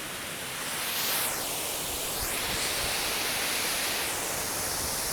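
Waterfall: steady rushing water noise with a slow sweeping whoosh in its upper range.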